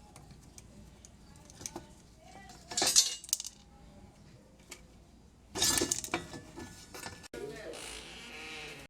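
Clinks and clatter of small screws and metal and plastic parts being handled while the washing machine's power board is unscrewed and taken out. Scattered sharp clicks, with two louder rattling bursts about three and about six seconds in.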